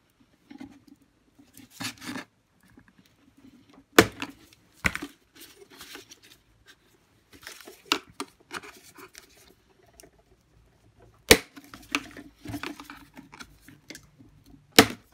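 Hard plastic parts of a Dyson DC41's bin and cyclone assembly being handled and worked apart, giving scattered clicks, scrapes and rattles. There are three sharp knocks or snaps: about four seconds in, about eleven seconds in, and near the end.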